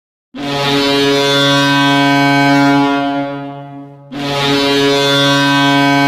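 HC Kometa Brno's ice-hockey goal horn sounding two long, steady blasts, signalling a goal. The first starts a moment in and dies away after about three seconds; the second starts about four seconds in.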